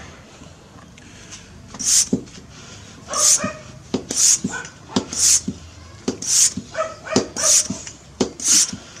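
High-pressure hand pump filling a PCP air rifle, worked in full strokes, each stroke giving a short hiss of air, about one a second from about two seconds in. The pump is going smoothly, no longer sticking.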